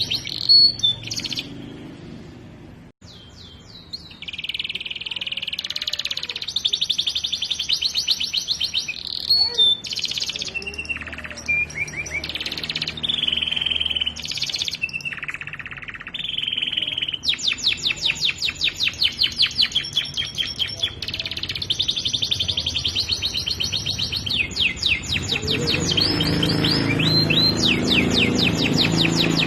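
Domestic canary singing continuously in vigorous song: fast rolling trills and whistled phrases that switch every second or two, with a short lull about two seconds in.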